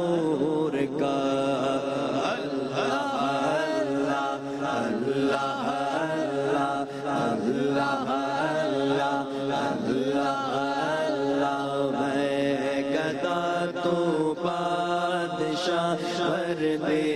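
Male voice singing an Urdu naat in a long, ornamented melody that bends and glides without clear words, over a steady low drone.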